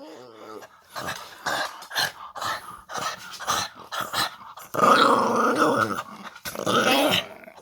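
Dog play-growling during rough play: a run of short noises, then a longer drawn-out growl about five seconds in and a shorter one near the end.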